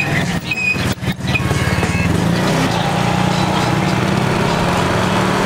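Motorbike engine running steadily while riding, dipping briefly in level about a second in.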